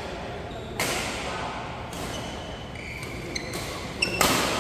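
Badminton rackets striking a shuttlecock in a doubles rally, with hall echo after each hit: a sharp hit about a second in, then two more near the end, the last the loudest. Short high squeaks from court shoes come between the hits.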